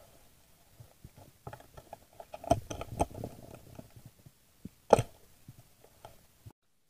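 Scattered clicks and knocks heard underwater, a busy cluster about two and a half to three seconds in and a sharp single knock about five seconds in. The sound cuts off abruptly near the end.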